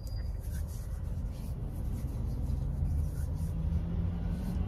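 Steady low rumble of a car in motion, engine and road noise heard from inside the cabin.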